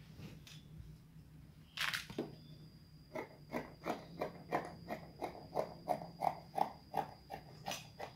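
Scissors snipping through lace fabric: a steady run of short cuts, about three a second, starting about three seconds in, after a brief rustle of the fabric about two seconds in.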